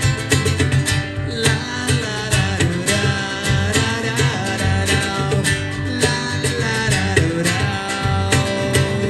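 Live band playing an instrumental passage of a pop-rock song: a gliding melodic lead line over a steady drum beat and bass.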